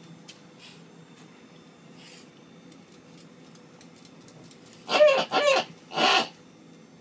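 Squeaky pig toy squeaked three times in quick succession by a miniature pinscher, about five seconds in, after a stretch of faint clicks and rustling.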